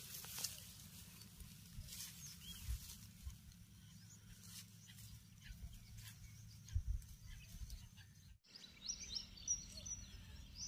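Faint crackling of footsteps through grass and brush over a low rumble. About eight seconds in the sound drops out for a moment, then small birds chirp in a quick series of short, high calls.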